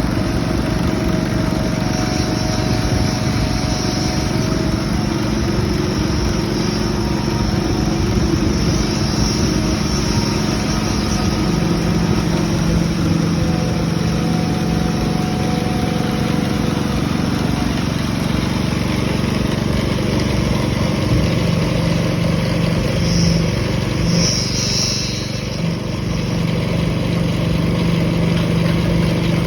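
Diesel engine of a self-loading concrete mixer running steadily under load, with a couple of brief high-pitched squeaks near the end.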